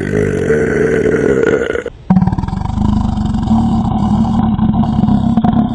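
Two long, loud belches from a man burping on command from swallowed air, not soda. The first lasts about two seconds; the second, deeper one follows right after and runs about four seconds.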